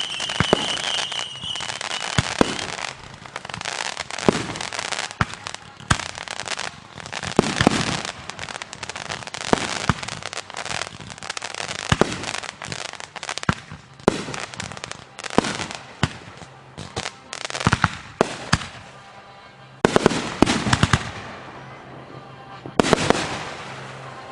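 Aerial fireworks going off in quick succession: many sharp bangs and crackles, with a whistling tone at the start. The barrage thins out briefly twice near the end, between louder clusters of bangs.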